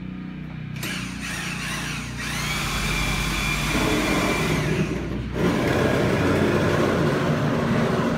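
Steady mechanical running of machinery, with a motor whine that rises about two seconds in, holds for a few seconds and then gives way to a louder, even rushing noise.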